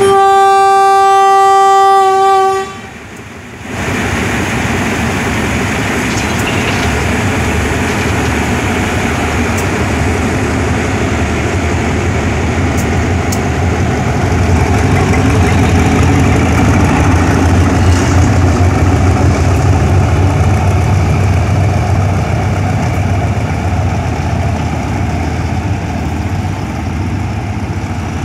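State Railway of Thailand GEA-class diesel locomotive 4559 sounds one long, steady horn blast of about two and a half seconds, then the train pulls away past the platform with its diesel engine running and the carriages rolling by, the low rumble growing louder in the second half.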